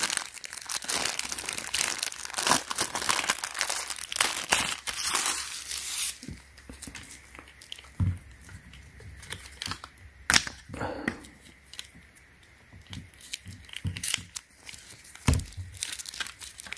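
Clear plastic wrapping crinkling and tearing as it is pulled off a belt buckle, dense for about the first six seconds, then sparser clicks and rustles of handling.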